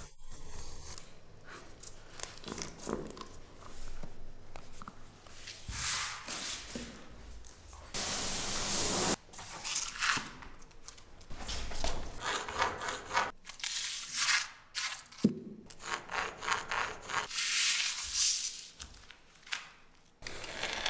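Utility knife scoring self-adhesive vinyl planks along a metal ruler, and hands laying planks and rubbing them down onto the floor. The result is a series of scraping and rubbing strokes of uneven length.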